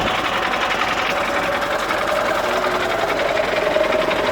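A car engine running with a steady, fast mechanical clatter.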